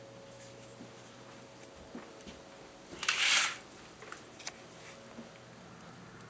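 A brief rustling swish about three seconds in, lasting about half a second, with a few faint clicks before and after it, over a low steady hum.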